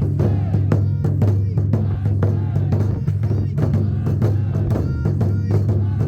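Music with drums struck in a quick, irregular rhythm over a continuous low drone.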